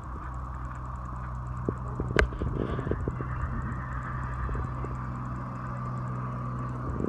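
A horse's hoofbeats on the arena's sand footing, a few soft thuds heard under a steady engine-like hum. A single sharp knock about two seconds in is the loudest sound.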